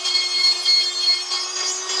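Electric die grinder running a carbide burr against an aluminium motorbike crankcase: a steady high motor whine with a rasping cut that swells and fades as the burr bites, cleaning the metal back before welding.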